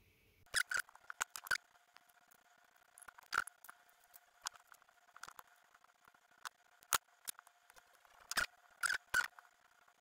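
Irregular crackles and sharp clicks of adhesive tape being handled and wrapped by gloved hands around a shaver's battery cell and wires to insulate them, loudest in a cluster of snaps near the end.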